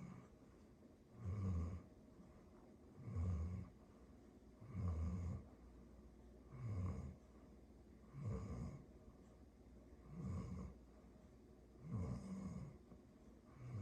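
Chocolate Labrador retriever snoring in its sleep: a steady rhythm of short, low snores, one about every two seconds.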